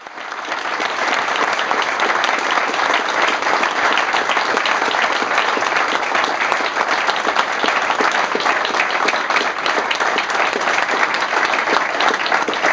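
A large group of people applauding, many hands clapping at once in a dense, steady patter. It starts abruptly and stays loud.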